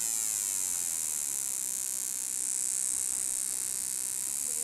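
Buzzy electronic tone from a homemade frequency-generator circuit, its pitch set by a sliding potentiometer. The pitch glides down over the first second or so, then holds steady.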